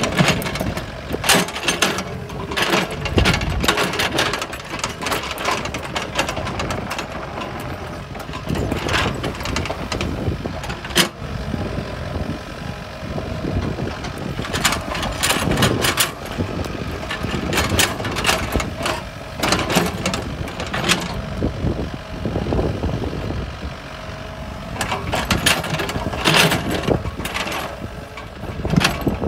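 IHI mini excavator's diesel engine running under working load as it digs and piles soil, with frequent irregular knocks and clatter from the bucket and falling clods.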